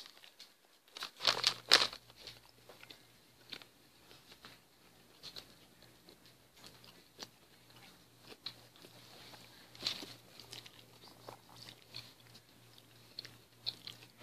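A person biting into a grilled chicken sandwich and chewing it close to the microphone. The bite is loudest a little over a second in, and scattered small clicks of chewing follow.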